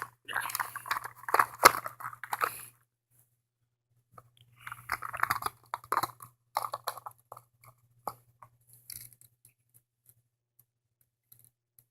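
Hard plastic parts of a toy combine harvester clicking, rattling and scraping as they are worked by hand, in two busy bursts and then a few scattered clicks that die away.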